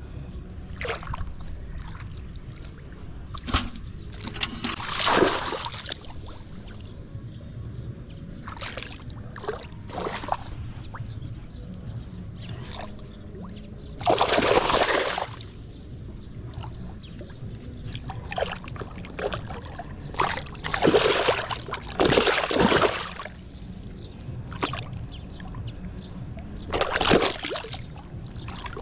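Water splashing and sloshing as a woven bamboo fish trap is handled and pushed down into shallow water, with several louder splashes of about a second each.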